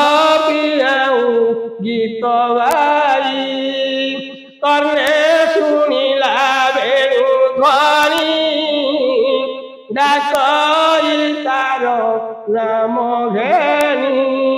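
A single voice chanting a Bhagavata verse in long, wavering melodic phrases, with short breaks between them.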